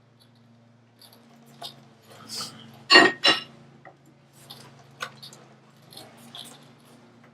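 Metal tools and parts clinking and knocking during wheel hub work, with two loud sharp metallic strikes close together about three seconds in, over a steady low hum.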